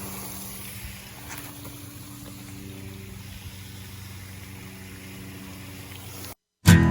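A steady low motor hum with a faint outdoor background. It cuts to silence near the end, and strummed acoustic guitar music starts.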